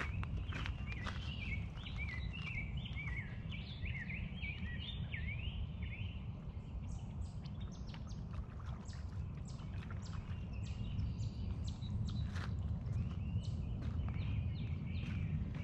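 A bird singing quick chirping phrases in the first six seconds and again near the end, over a steady low rumble, with scattered sharp clicks in between.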